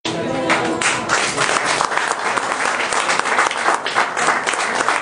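A small group applauding, many irregular hand claps, with a held musical note dying away in the first second.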